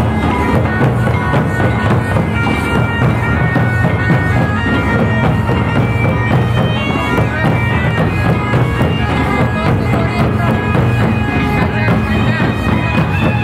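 Santali traditional folk music: a reedy wind instrument plays a sustained, droning melody over the steady beat of barrel drums struck with sticks.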